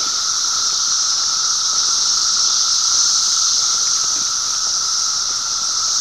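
Dense chorus of 17-year periodical cicadas in the roadside trees: a loud, steady drone made of a high hiss and a lower, even droning tone.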